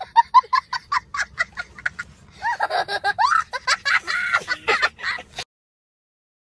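A young child laughing hard: quick giggling bursts for about two seconds, then longer, high, wavering peals of laughter that stop suddenly about five and a half seconds in.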